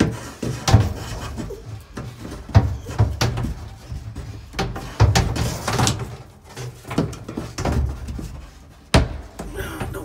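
Irregular knocks, bumps and scraping as yellow NM electrical cable is fed up through a drilled hole in a wooden cabinet, with a sharp knock about nine seconds in.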